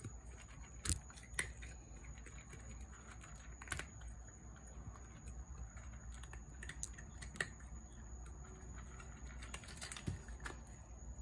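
Cat crunching dry kibble: irregular, crisp chewing crunches, with a few louder crunches spread through.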